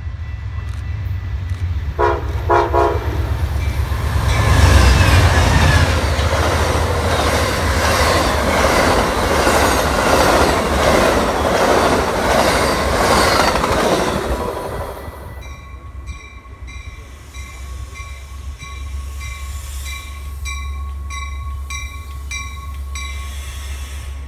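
Amtrak Empire Builder passenger train, led by a P42DC diesel locomotive, sounding a short horn blast about two seconds in, then rushing past at speed, its Superliner cars clattering over the rails for about ten seconds. After a cut, a Metra commuter train at the platform, with a low steady diesel hum and a repeated ringing.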